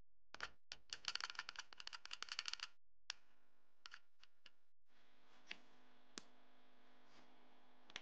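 A quick run of light, sharp clicks and taps lasting about two seconds, then a few scattered single clicks, typical of small hard objects being handled on a wooden board.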